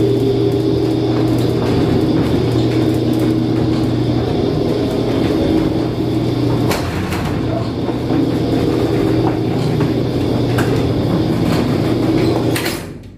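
Steady low engine drone with a constant hum, overlaid by a few knocks from the phone being handled; the sound drops away sharply for a moment near the end.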